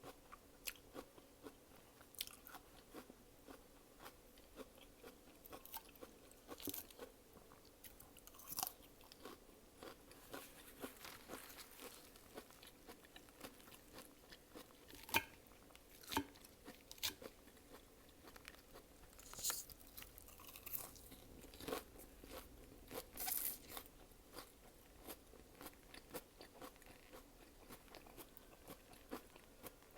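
A person chewing and biting food close to the microphone, in many short, irregular clicks and crackles, with a few louder ones about halfway through.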